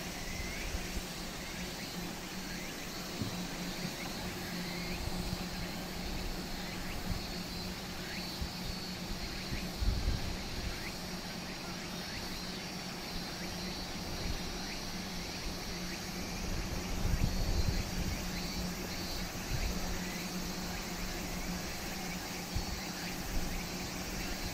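Outdoor ambience: a steady low drone, wind buffeting the microphone in gusts (strongest about ten seconds in and again near seventeen seconds), and a continuous high buzz of insects.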